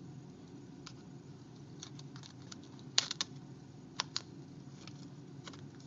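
Scattered small plastic clicks and taps from hands handling a Droid phone as a part is taken off it, loudest in a quick cluster of three about three seconds in and a pair about a second later.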